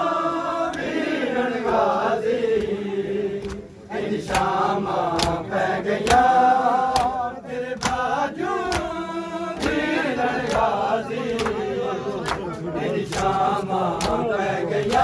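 Men's voices chanting a Punjabi mourning lament (noha) in a steady rhythm, over sharp, regular slaps of open hands on bare chests (matam) about once a second.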